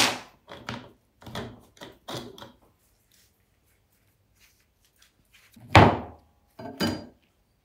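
Steel clutch plates and frictions from a 6L90E transmission clutch drum clinking as they are lifted out, then a loud clunk about six seconds in, with a brief ring, as the plate stack is set down on a wooden workbench. A couple of lighter knocks follow.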